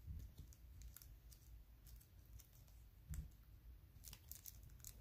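Faint clicks and ticks of baseball trading cards being handled and flipped through, with a soft low thump just after three seconds in and a quick cluster of ticks about a second later.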